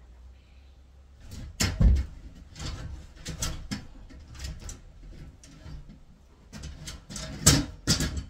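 Irregular knocks and clunks of wooden boards being handled during carpentry work. The loudest pair comes just under two seconds in and another pair near the end.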